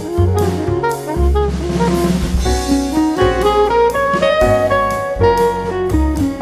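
Instrumental background music: a pitched melody over a drum kit beat.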